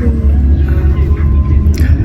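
Background music over the steady low rumble of a car on the move.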